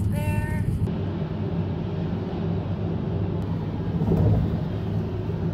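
Car road noise heard from inside the cabin while driving: a steady low rumble of tyres and engine, swelling slightly about four seconds in.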